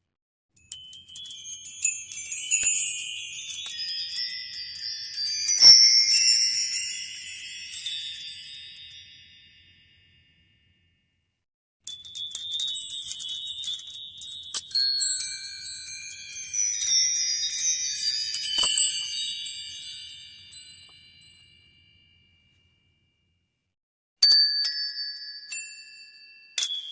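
Flashback transition sound effects: clusters of high, tinkling chime and bell tones ringing over one another and fading out over several seconds. Three of them play with short silent gaps between, the last beginning near the end.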